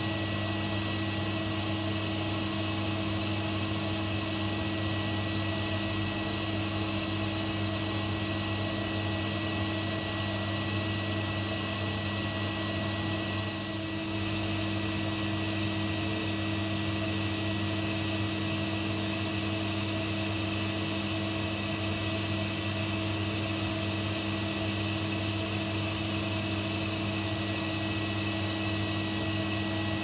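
Numatic Henry cylinder vacuum cleaner running steadily: an even motor hum and rush of air with a constant high whine, dipping slightly for a moment about halfway through.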